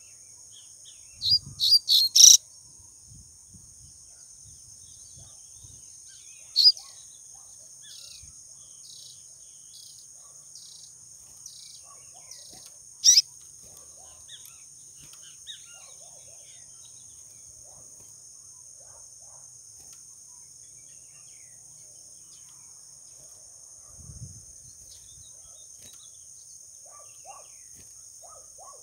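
Papa-capim seedeater calling: a quick run of four sharp, high chirps about a second in, single chirps later on, and fainter short notes in between. A steady high insect drone runs underneath, with a soft low thump or two.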